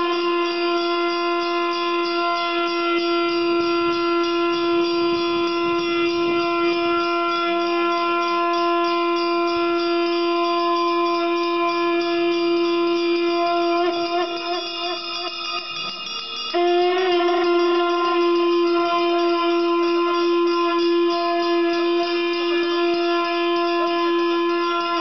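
A conch shell (shankha) blown in long, steady blasts on one held note, the traditional call at the start of the Ganga aarti. The first blast wavers and fades about fourteen seconds in, and a fresh blast starts with a slight upward scoop about sixteen and a half seconds in and is held.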